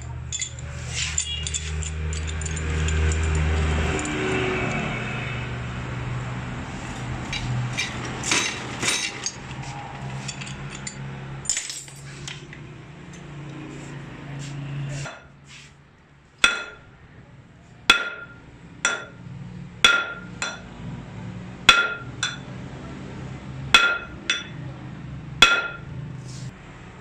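Metal being struck: about eight sharp hammer blows on a steel part in the second half, a second or so apart, each ringing briefly. Before them a low steady hum and light tool clatter, the hum stopping about halfway through.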